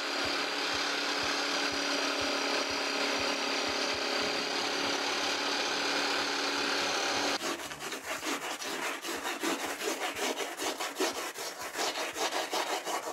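A small handheld power saw runs steadily as its blade cuts through foam board, then stops suddenly about seven seconds in. Quick hand-sanding or rasping strokes on the foam follow, about four a second.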